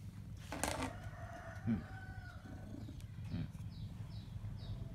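A rooster crowing once: a long, drawn-out call beginning just under a second in and lasting about a second and a half. Near the end come a few short, high chirps from small birds.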